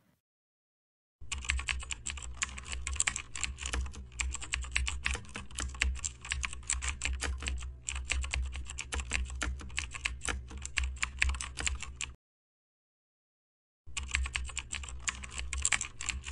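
Rapid typing on a computer keyboard, a dense stream of key clicks. It starts about a second in, stops about twelve seconds in and starts again some two seconds later.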